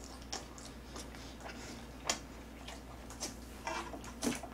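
Close-miked chewing of crispy boneless fried chicken: irregular wet clicks and smacks from the mouth, one or two a second.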